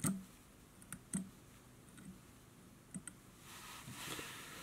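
A few faint, sharp clicks and taps from hands and tools working at a fly-tying vise. From about three and a half seconds in there is a soft, steady hiss.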